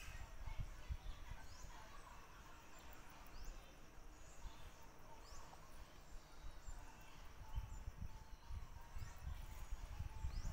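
Quiet woodland ambience: faint short high chirps, each rising in pitch, recurring every second or two, over irregular low rumbling on the microphone.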